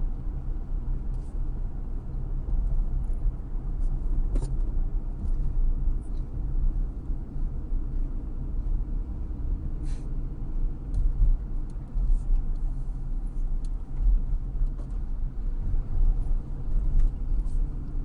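Steady low rumble of a car's engine and tyres on the road, heard from inside the cabin through a windshield-mounted dashcam. A few faint clicks sound over it, the clearest about four and ten seconds in.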